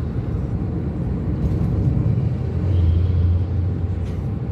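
Steady low road rumble of a car driving at speed on a highway, heard from inside the cabin: engine and tyre noise, swelling a little about three seconds in.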